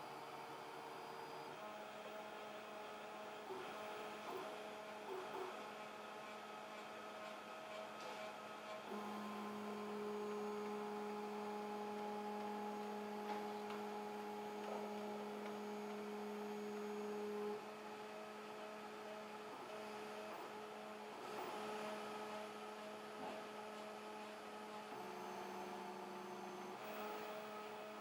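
Stepper motors of an MPCNC gantry machine, driven from a RAMPS 1.4 board, moving the head around the table: a faint, steady hum whose pitch jumps to a new note with each change of move, three times over, and is louder for several seconds in the middle.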